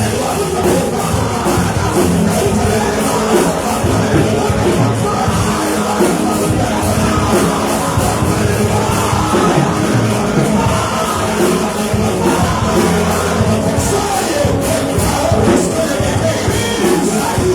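Loud live church worship music, with a congregation's voices praying and shouting over it.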